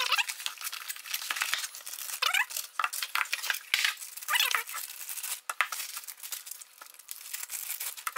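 Plastic wrapping crinkling and tearing as cast steel camshafts are unwrapped, with many light clicks and knocks as the camshafts are handled and laid on the bench.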